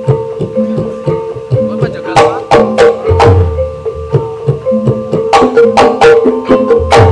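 Gamelan music accompanying an ebeg trance dance: a steady ringing metallophone tone under a rhythmic pattern, with sharp hand-drum (kendang) strokes coming in about two seconds in and again near the end.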